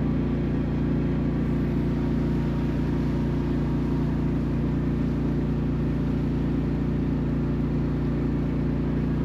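Generator running at a steady speed, a constant engine hum with no change in pitch.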